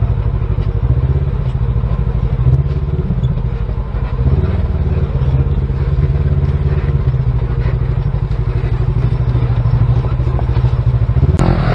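Side-by-side UTV engine running steadily as it drives along a rough dirt trail, with a fast low pulsing throughout. A brief louder burst rises over it near the end.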